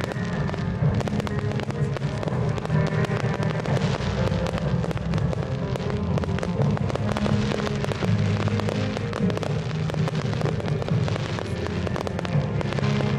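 Fireworks display: rapid pops and crackles of small shells and rising comets bursting in quick succession, over music playing throughout.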